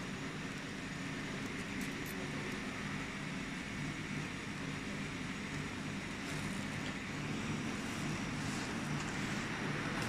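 Steady hum and fan noise of running machinery, with a few faint metallic clicks as a threaded round cable connector is turned by hand.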